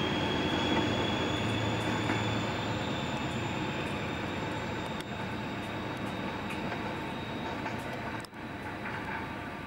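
InterCity 125 high-speed train pulling away, the Class 43 power car's diesel engine working, with a high whine that climbs slightly in pitch. The sound fades steadily as the train draws off, with a brief dropout about eight seconds in.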